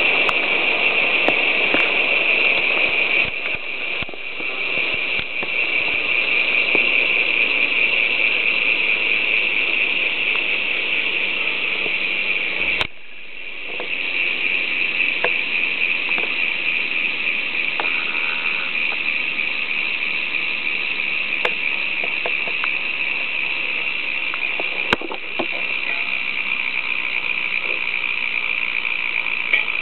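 Novatech DO-42-SB rear bicycle hub freewheeling: the pawls clicking so fast that they run together into a steady, high buzz as the wheel coasts. The buzz drops out briefly about halfway through and then picks up again.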